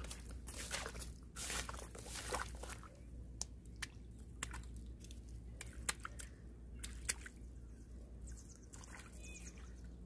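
Footsteps squishing in wet mud among rice stubble in a flooded paddy, with scattered faint crackles of straw being handled. The crackles are densest in the first couple of seconds and then thin out.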